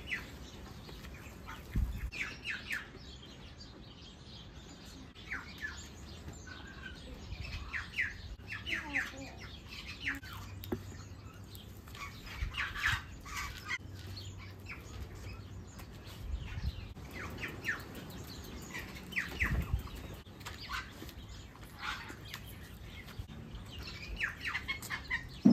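Outdoor birds calling on and off: short, sharp chirps, often in quick runs of two to four.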